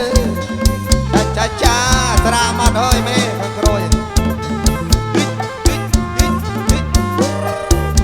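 Live kantrum band music with a steady drum beat, a moving bass line and a wavering melody over it.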